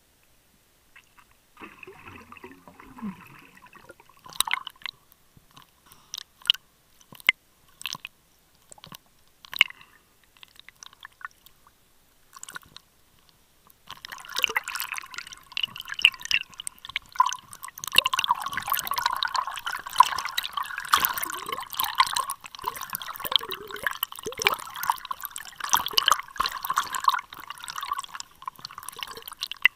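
Water moving around a submerged camera, heard through its waterproof housing: at first scattered clicks and crackles, then about halfway through a dense, continuous crackling and bubbling as the camera moves through the water.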